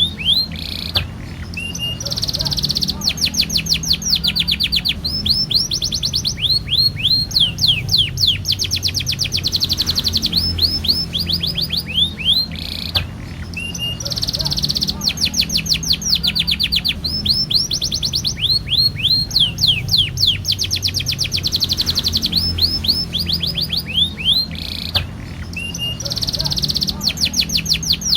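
Domestic canary singing a long, unbroken song of fast trills and rolls, phrase after phrase of rapidly repeated high notes, over a steady low hum.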